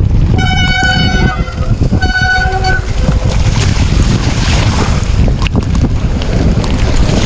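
Heavy wind buffeting on the microphone of a rider's camera while mountain biking, with two steady, high-pitched horn toots in the first three seconds, the first about a second long and the second a little shorter.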